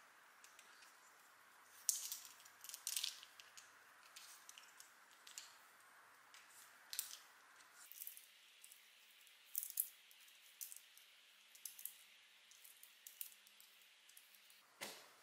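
Small plastic LEGO pieces clicking and rattling faintly as they are handled and slid onto Technic axles: scattered light clicks, a few at a time, over a faint hiss.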